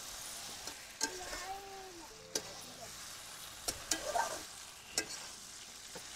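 Metal spatula stirring fried raw-banana pieces through masala in a metal kadhai, over a light sizzle of frying. The spatula knocks and scrapes against the pan a few times, about a second apart.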